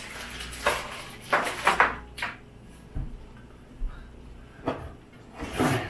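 Plastic-bagged model kit parts rustling and crinkling as they are handled, in several short bursts, with a soft thump about three seconds in.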